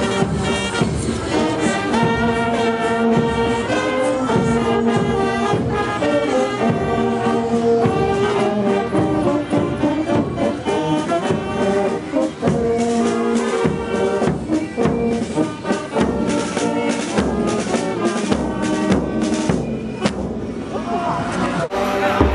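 Marching brass band playing a tune on tuba and other brass horns over a steady drum beat. The music cuts off abruptly shortly before the end.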